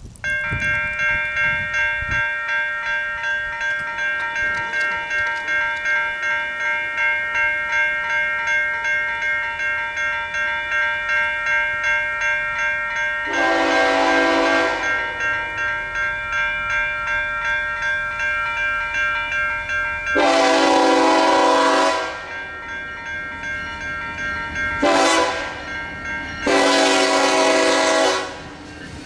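Safetran Type 3 electronic crossing bell starting up as the grade crossing activates and ringing steadily in a fast pulsing pattern. About halfway, the approaching SD70ACe locomotive's horn sounds the long, long, short, long grade-crossing signal over the bell.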